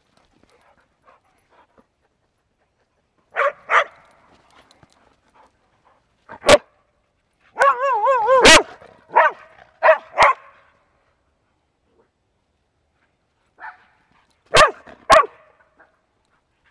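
Dogs barking in play in short, loud bursts: a pair of barks, a single sharp bark, then a wavering whine-like yowl about a second long that runs into a quick string of barks, and another pair of barks near the end.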